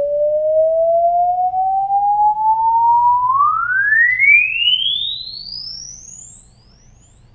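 Electronic sine-wave test tone sweeping upward in pitch: a single pure tone rising slowly at first, then gliding faster from about three seconds in to a very high whistle, fading as it climbs. It is a frequency sweep played as an audio test signal for the microphones.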